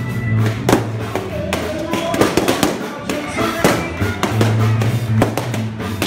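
Balloons popping one after another at irregular intervals, over dance music with a steady bass line and crowd chatter.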